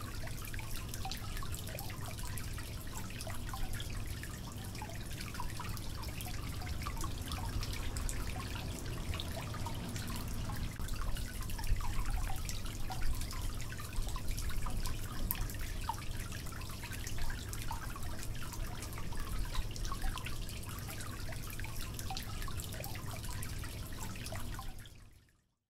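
Thick mutton gravy bubbling in the pot, with many small pops and splutters over a steady low hum; it fades out near the end.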